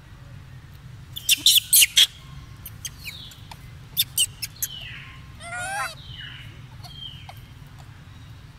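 Golden snub-nosed monkeys giving short, high, falling squeaks, with one longer wavering squeal about halfway through. Two bursts of sharp clicks come about a second in and again about four seconds in.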